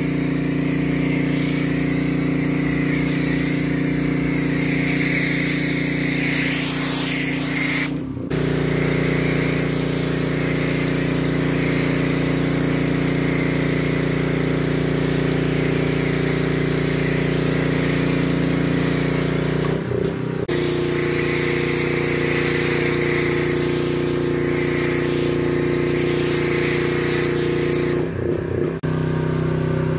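Gas-engine pressure washer (Husqvarna PW3200) running steadily under load while a snow foam cannon sprays, a hiss of spray over the engine note. Three short breaks come about a quarter of the way in, two-thirds in and near the end, and the engine note settles at a slightly different pitch after each.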